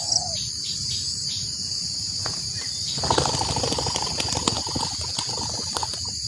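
Steady high-pitched chorus of crickets or cicadas. From about three seconds in it is joined by louder rustling with scattered crackles and clicks.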